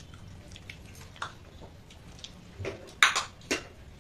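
Fingers picking at fish on a stainless-steel plate, with small clicks and then two sharp clinks against the metal about three seconds in, half a second apart.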